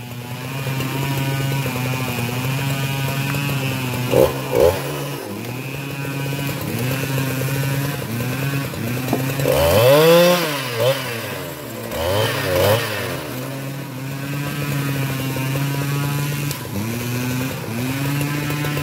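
Husqvarna 395XP two-stroke chainsaw running steadily at low speed. It is revved up and back down several times, with two quick blips a few seconds in and the strongest revs about halfway through.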